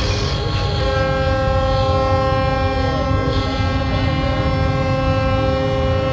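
A vessel's horn held in one long steady blast, starting about a second in and sounding for the hull launch, over a constant low rumble.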